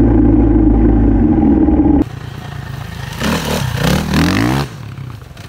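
Dirt bike engine running steadily close by. After an abrupt cut, a dirt bike revs and accelerates away, its pitch climbing and falling several times as it rides off.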